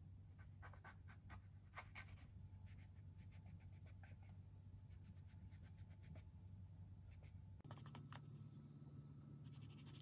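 Faint, rapid light clicks and taps over a low steady hum: a quick flurry in the first few seconds, then scattered clicks and another short cluster near the end.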